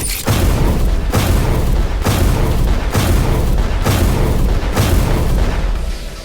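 Repeated loud booms, about one a second, over steady music, with a strong low rumble underneath; the level drops near the end.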